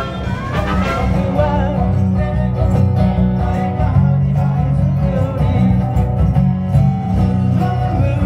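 A band playing live, with acoustic guitar over a steady bass line.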